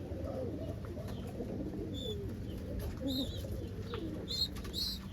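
Homing pigeons cooing, low wavering calls overlapping one another, with a few short high chirps about two, three and four-and-a-half seconds in, over a steady low hum.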